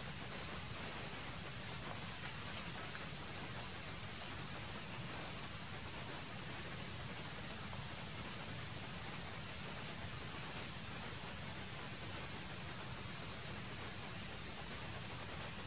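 Steady outdoor insect chorus: a constant high-pitched drone that holds one pitch, over an even background hiss.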